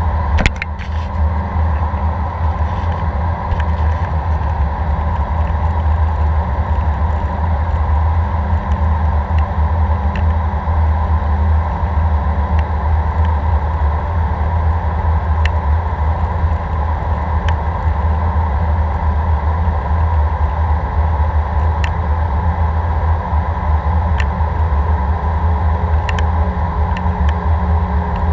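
Steady cabin noise of an Airbus A319 in flight, heard at a window seat over the wing: a continuous deep drone of the engines and airflow. A single sharp click about half a second in.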